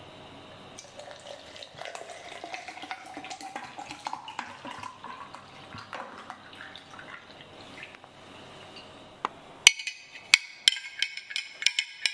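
Water poured from a swing-top glass bottle into a tall glass, the pouring tone rising in pitch as the glass fills. Near the end comes a quick run of sharp clinks, a metal straw stirring against the glass.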